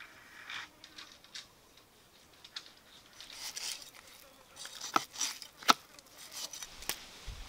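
A cleaver scraping scales off a fish on a wooden chopping board, in short rasping strokes, with two sharp knocks of the blade about five seconds in.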